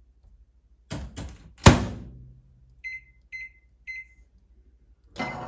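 Old microwave oven: a few clicks and a loud clunk, then three short high beeps about half a second apart. A steady hum starts up near the end.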